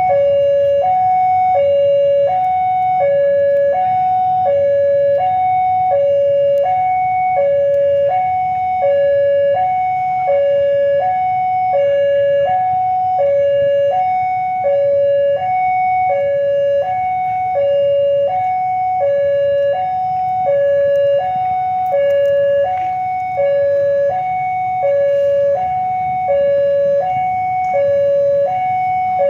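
Railway level-crossing warning alarm sounding a steady two-tone hi-lo signal, each note about half a second long, warning that a train is approaching.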